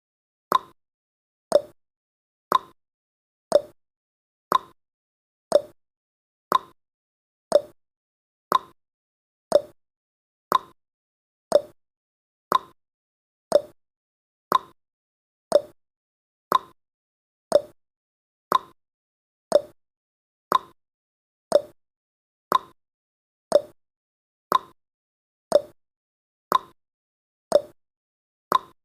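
Countdown timer's ticking sound effect: one short, sharp tick each second, evenly spaced, with silence between ticks.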